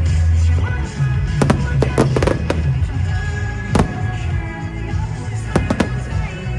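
Fireworks going off in sharp bangs: clusters of quick bangs about one and a half and two seconds in, a single bang near four seconds, and another cluster near six seconds. Music with a heavy steady bass plays underneath.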